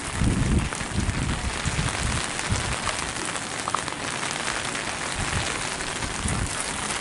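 Steady hurricane rain falling on water and docks, an even hiss, with gusts of wind rumbling on the microphone, strongest in the first second.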